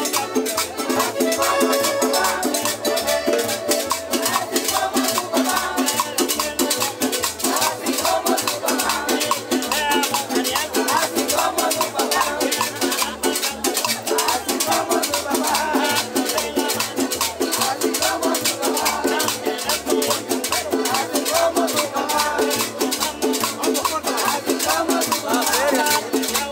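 Live combo band playing Latin dance music with a steady, even beat.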